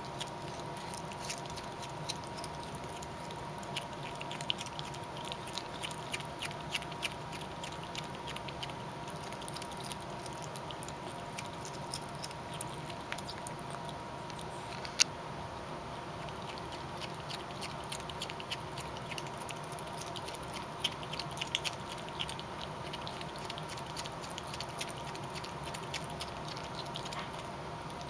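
Skunks eating vegetables: a run of small, irregular crunching and clicking chewing sounds, with one sharper click about fifteen seconds in.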